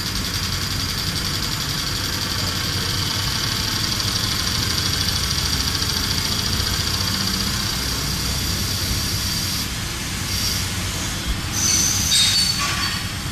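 WFL M60 MillTurn machine running while machining a crankshaft: a steady high-pitched whine over a low rumble. About ten seconds in, the whine shifts and breaks up.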